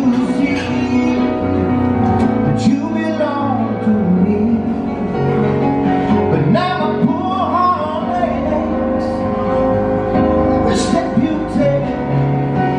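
Music with a voice singing over instruments.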